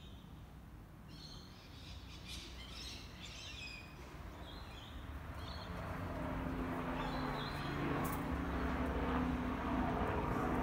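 Birds chirping in short calls, with street traffic noise that grows louder about halfway through and then runs on as a steady hum.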